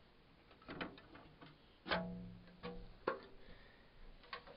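Clicks and knocks of a Power Mac G5's aluminium case and inner parts being handled as it is opened. One knock about two seconds in rings on for about a second, and a sharp click follows about a second later.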